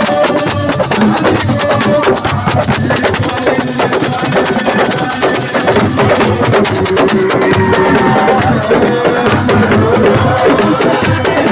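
Live assiko band music: dense, fast hand-drum percussion with a melodic line over it, played loud.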